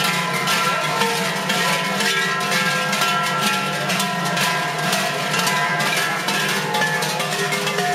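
Many large bells worn by Glöckler runners ring together without a break: a dense, steady clanging of many overlapping pitches as the group moves along.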